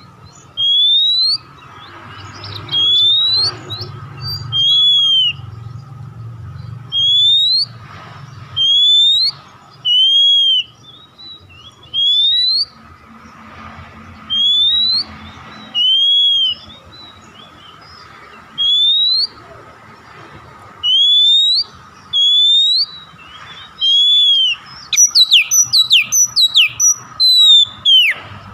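Oriental magpie-robin (kacer) singing: loud, clear whistled notes, each rising or arching, repeated every one to two seconds. Near the end they break into a quick run of sharp falling notes.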